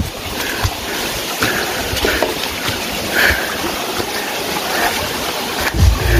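Steady rush of flowing water from a mountain stream.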